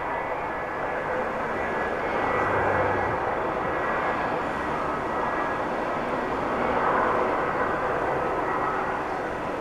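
Jet airliner engines heard across an airport: a steady noise with a faint steady whine, swelling a little about two and a half seconds in and again near the end.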